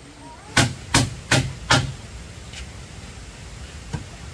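Hammer blows on wood: four quick, loud strikes in a steady rhythm, then two lighter knocks later on.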